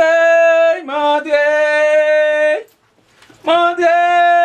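A single voice singing in long held notes: one steady note that slides to a second held note, a brief break, then another long note near the end.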